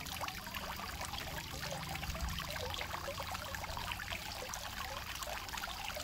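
Tiered garden fountain running steadily, its jet of water spraying up and splashing and trickling down into the basins.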